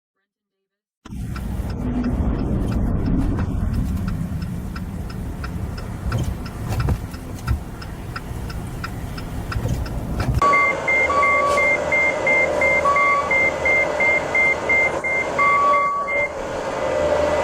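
A motor vehicle running with a steady low rumble and faint regular ticking about twice a second. After a cut about ten seconds in, a rapid electronic warning beep repeats two or three times a second for several seconds, with a few longer lower beeps over a steady hum.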